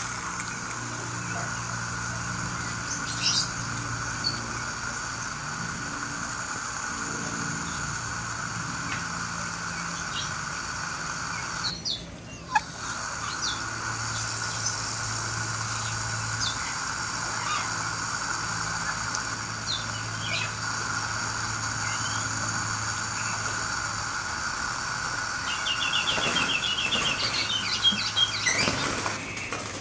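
Garden hose spray hissing steadily over foliage, with a brief break about twelve seconds in, stopping just before the end. Birds chirp now and then over it, with a quick chattering trill near the end.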